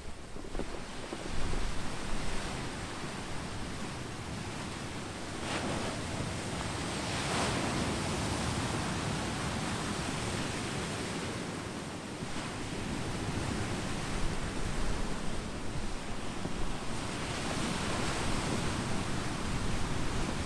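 Pacific surf breaking and washing over a shore of rounded volcanic boulders and pebbles, swelling in several successive waves, with wind buffeting the microphone.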